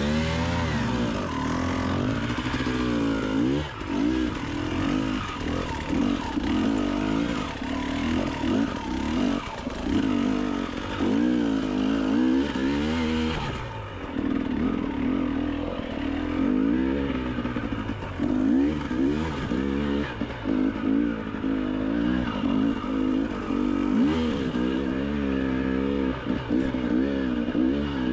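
Enduro motorcycle engine revving up and down over and over, the throttle worked in short bursts as it crawls through a technical rocky section.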